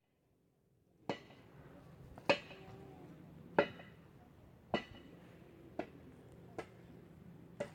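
A series of seven sharp knocks with a slight clinking ring, about one a second, starting about a second in after a moment of near silence.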